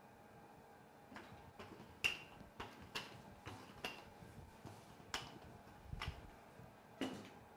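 Wooden rolling pin rolling out dough on a floured stainless-steel counter: a faint, irregular series of light clicks and knocks, about a dozen, as the pin and its handles knock, the sharpest about two seconds in.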